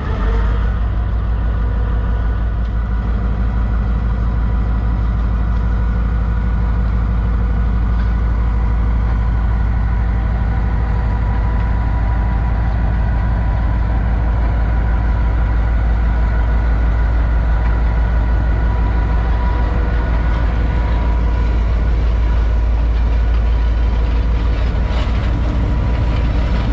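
Diesel-electric locomotive engine running loudly and steadily close by, a deep rumble with a steady whine over it. The lead unit, GMCU-15 No. 4913, is under power while the trailing HPU-20 No. 8082 is shut down.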